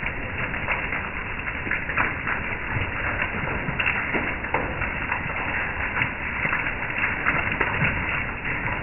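Hailstones pelting a wooden deck and a metal mesh patio table: a dense, irregular patter of sharp taps over a steady hiss.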